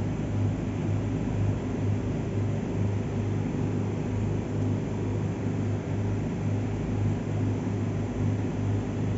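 Steady low machine hum with a faint hiss, wavering a little in strength.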